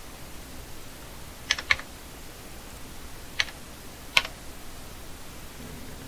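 Sharp clicks of computer keys: two in quick succession about a second and a half in, then single clicks around three and a half and four seconds in, over a faint steady hiss.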